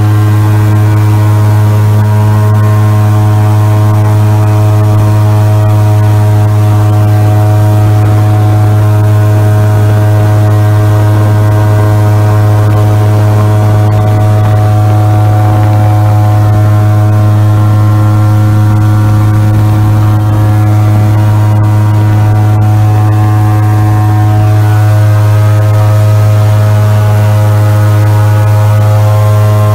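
Airboat's engine and big air propeller running steadily as the boat travels along a marsh channel: a loud, unbroken drone on one low pitch.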